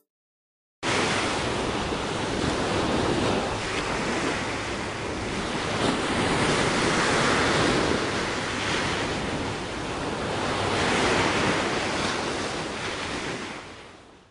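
Ocean surf: a steady rush of waves that swells and eases in slow surges. It cuts in abruptly about a second in and fades out near the end.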